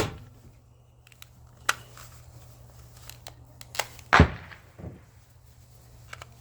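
A few scattered sharp clacks and knocks of small hard parts from a computer mouse being handled and set or dropped down, the loudest and heaviest knock about four seconds in.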